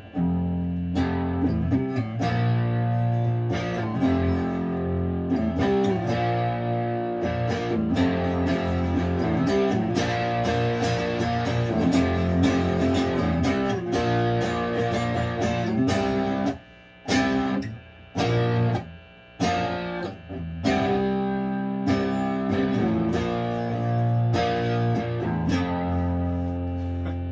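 Epiphone Casino hollow-body electric guitar strummed in ringing chords, with a few brief stops about two-thirds of the way through.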